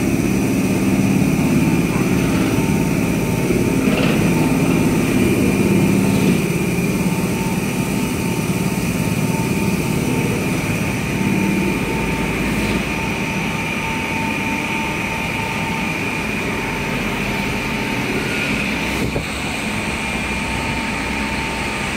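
Fiber cement board production machine running steadily, a constant whine over a heavier rumble, as a board is fed through its rollers. The rumble eases about twelve seconds in.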